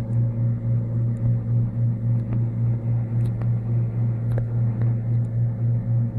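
Peke-face Persian cat purring steadily, a low pulsing rumble, with a few faint clicks.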